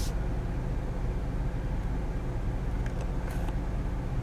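Steady low hum of a 2014 Ford Escape's 2.0L EcoBoost four-cylinder idling, heard from inside the cabin, with a faint click and a brief hiss about three seconds in.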